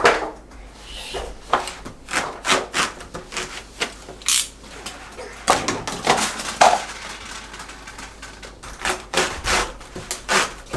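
Irregular light knocks, taps and rubbing as foam play-mat pieces are handled and fitted together on the floor, with a toddler's brief vocal sound about six and a half seconds in.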